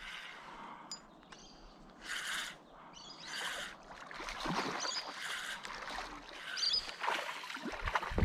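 Water splashing in short, repeated bursts as a hooked flathead thrashes at the surface close to the bank, with the loudest, heaviest splash near the end. A few short bird chirps.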